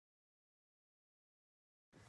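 Silence: the audio track is blank, with noise cutting in abruptly at the very end.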